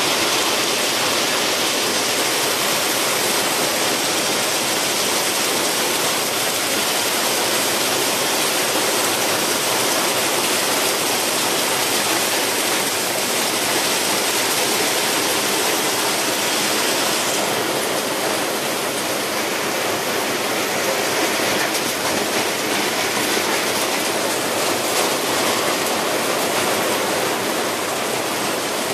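Heavy rain pouring steadily onto a paved road and puddles: a dense, even hiss.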